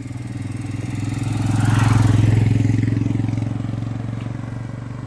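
A passing road vehicle's engine, running with a steady low hum that swells to its loudest about two seconds in and then fades away.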